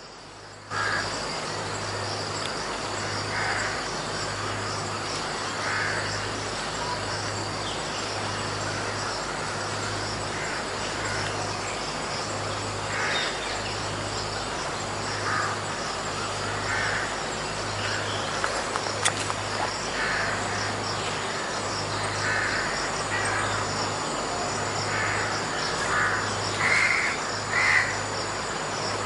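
Jungle ambience: a steady high insect drone, a low hum that pulses about once a second, and short animal calls now and then, coming louder and closer together near the end.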